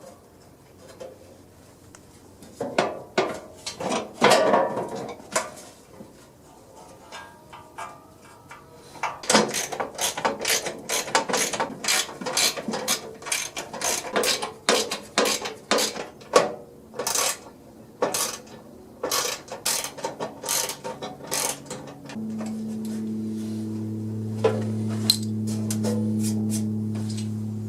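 Rapid, repeated mechanical clicking from hand-tool work on machinery, in quick runs of strokes. A steady electric motor hum starts in the last few seconds.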